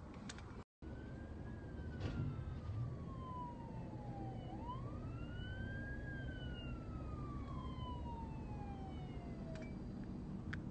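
Police car siren on a slow wail, its pitch sweeping up and then gliding slowly down, twice, over the steady low rumble of traffic. The sound drops out for a moment under a second in.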